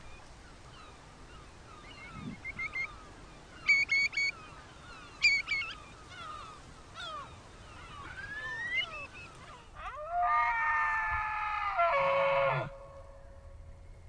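Eurasian curlew calling: a string of short whistled notes and sharper double calls, then a rising whistle. After that a bull elk bugles once for nearly three seconds, a loud, drawn-out call that wavers slightly and ends low.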